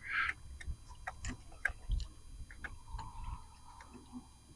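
Scattered faint clicks and light knocks, irregularly spaced, with a faint wavering hum around the third second.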